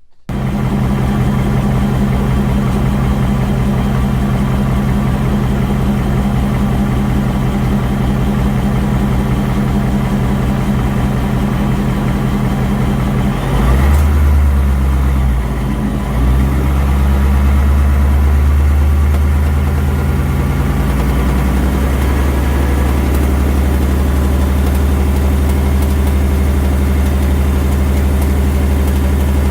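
2019 Ford Mustang GT's 5.0 Coyote V8 running with a constant clanky ticking and tapping. The revs are raised about halfway through and held for several seconds before settling back, and the ticking gets louder with RPM. A Ford technician suspects cylinder 1 scoring rather than the normal 'BBQ tick'.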